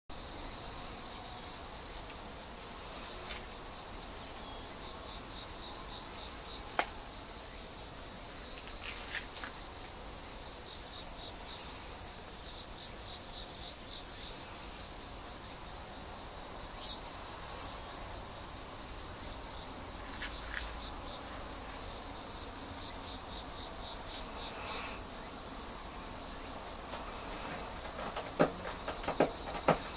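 Insects chirring steadily in the background, a high-pitched pulsing trill. A few sharp clicks break through, with a quick run of clicks near the end.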